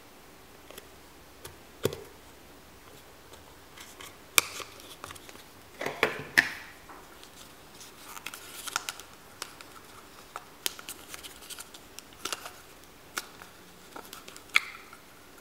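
Hands prying and twisting at the plastic lid of a Play-Doh tub, giving irregular sharp plastic clicks, snaps and short scrapes, the loudest about four seconds in, around six seconds in, and near the end.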